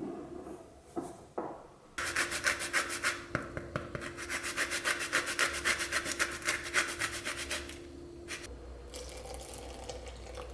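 Rapid, even scraping strokes, about five or six a second, start about two seconds in and stop before the last few seconds.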